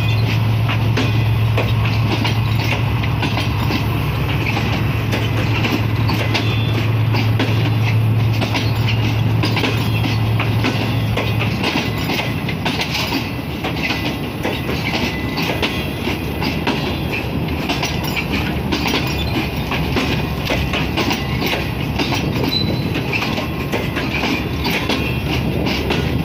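Pakistan Railways Green Line Express passenger coaches rolling past as the train pulls out, wheels clicking over the rail joints. A steady low hum stops about eleven seconds in.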